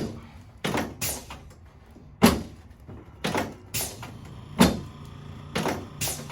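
A series of about eight sharp clacks and knocks from a chiropractic adjusting table during a neck adjustment, coming irregularly, half a second to a second apart.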